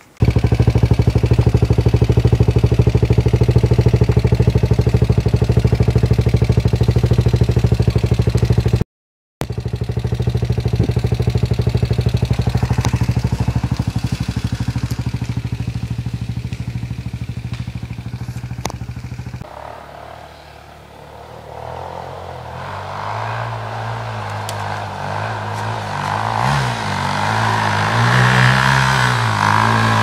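Dirt-bike engines. One runs steadily at close range, broken by a half-second gap. About two-thirds of the way through, the sound changes to a dirt bike revving as it climbs a slope, its pitch rising and falling and growing louder as it comes near.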